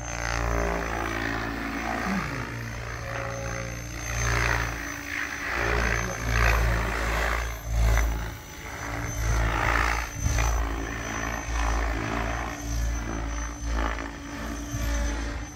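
SAB Raw Piuma 700-size electric RC helicopter, driven by a Scorpion 4035-560KV motor on 12S, flying aerobatics. Its rotor blades swish and whoosh, and the sound surges and fades over and over as it swoops and turns.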